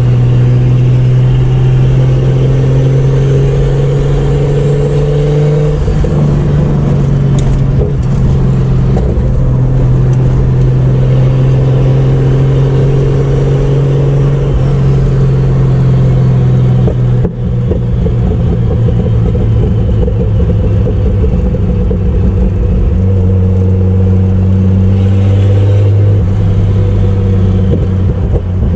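Turbocharged Chevrolet Opala inline-six engine running steadily under way, a deep even drone. Its pitch shifts a few times, the sound drops out for a moment about two-thirds of the way through, and the engine settles to a lower pitch near the end.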